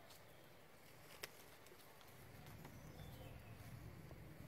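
Near silence: faint outdoor ambience with a single sharp click about a second in and a low rumble that grows from about halfway.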